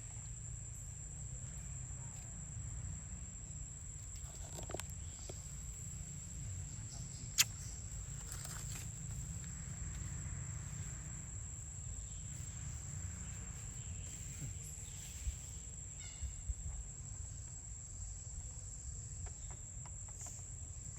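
Outdoor ambience: a steady high-pitched insect drone over a low rumble, with one sharp click about seven seconds in.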